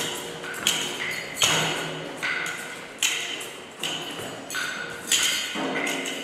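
Small percussion instruments struck by hand in improvised accompaniment: a sharp strike about every three-quarters of a second, each ringing on with a high note that changes pitch from strike to strike.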